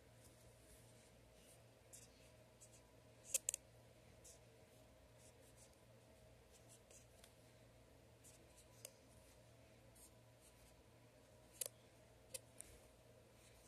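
Faint dry-erase marker strokes on a whiteboard, short scratchy strokes as words are written by hand. A few sharper taps stand out, the loudest a quick double tap about three and a half seconds in and another near the end.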